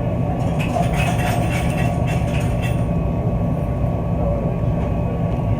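Steady low mechanical rumble of running machinery, with a brief spell of light clinking and rattling from about half a second to three seconds in.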